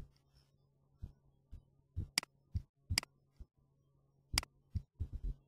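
Computer mouse clicking: about four sharp single clicks spread over the few seconds, with a few fainter ticks between, over a faint steady low hum.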